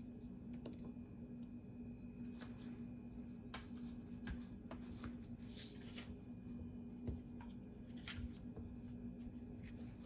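Faint scattered clicks and scrapes of a slim laptop optical drive and its small metal mounting bracket being handled, with one louder knock about seven seconds in, over a steady low hum.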